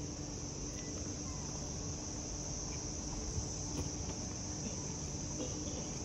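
Steady high-pitched insect chirring with no breaks, over a faint low rumble.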